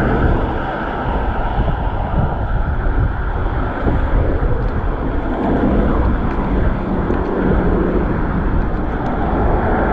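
Motor traffic going by on a busy road, heard from a moving bicycle, with wind rumbling on the chest-mounted action camera's microphone. It is a steady, loud noise that swells a little around five seconds in and again near the end.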